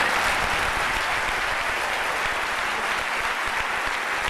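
A large audience applauding, steady and sustained.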